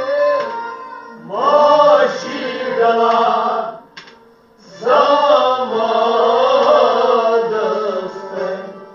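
A voice singing a Kashmiri devotional kalam in two long melodic phrases, with a short break a little before halfway.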